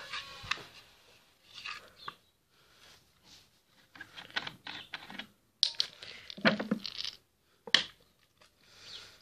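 A utensil scraping and stirring dry flour in a metal pan, in irregular crunchy strokes with a sharp knock about three-quarters of the way through. Heavy breathing close to the microphone.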